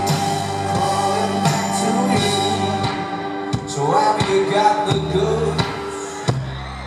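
Live rock band playing: a slow drum beat, sustained bass and electric guitar, with voices singing over it.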